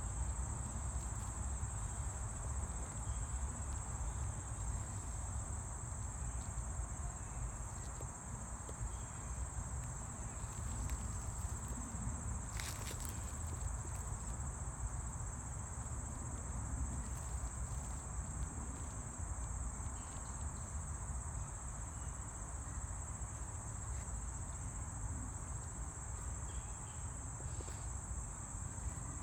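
Continuous high-pitched insect chorus, an unbroken steady drone, over a low rumble. One brief click about halfway through.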